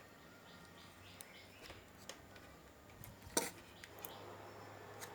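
Faint small clicks and taps of tools and parts being handled on a workbench, with one sharper knock a little past the middle, over a low steady hum.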